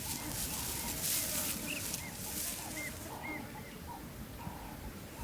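Small birds chirping: short, high, arched chirps repeated at irregular intervals, with fainter lower calls among them. A steady hiss sits under them and stops about three seconds in.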